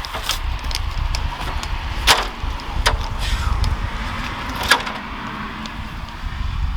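Wind buffeting the microphone as a fluctuating low rumble, with several sharp knocks and clatters from handling equipment. The loudest knocks come about two seconds in and again near five seconds.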